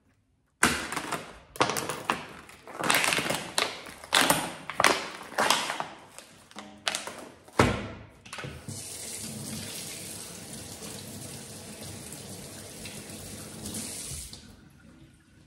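Plastic packaging film crinkling and tearing in a run of crackly bursts, with a sharp knock about seven and a half seconds in. Then a kitchen tap runs steadily into a steel sink for about six seconds as a raw chicken fillet is rinsed, and the water shuts off shortly before the end.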